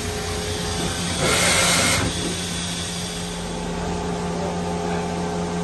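Steady electrical and mechanical hum of a powered-up 2006 Mazak VCN410A vertical machining center, with a short burst of hiss a little over a second in that lasts under a second.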